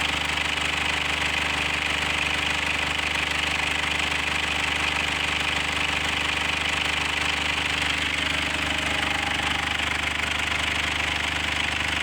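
2008 Mazda BT50's 3-litre turbo diesel engine idling steadily with its usual diesel knock, running nicely.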